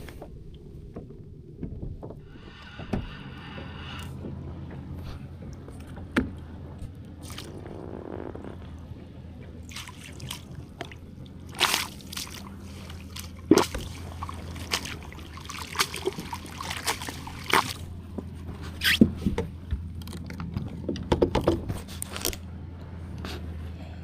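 Water sloshing and splashing around a kayak, with a run of sharp knocks and clicks in the second half, over a steady low hum.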